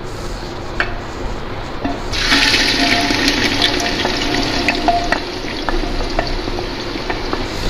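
Sliced onions going into hot ghee in a clay pot: a loud sizzle starts suddenly about two seconds in and keeps going, with a few light clicks as the wooden spatula scrapes them off the plate.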